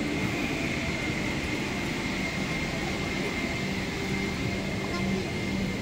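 Steady cabin noise of a parked Boeing 777-300ER during boarding: an even hiss and hum of the cabin air system, with a thin steady high whine and a low steady hum.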